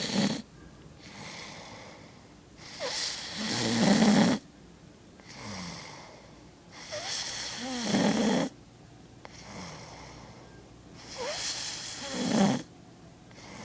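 A person snoring: three loud snores about four seconds apart, each building up and then cutting off abruptly, with quieter breathing in between.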